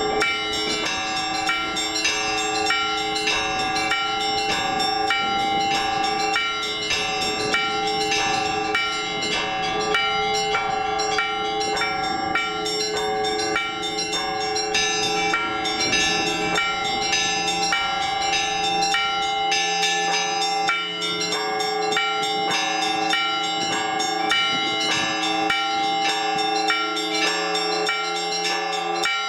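Orthodox church bells rung by a bell-ringer: quick repeated strikes of the smaller bells over the steady, lingering hum of the larger bells.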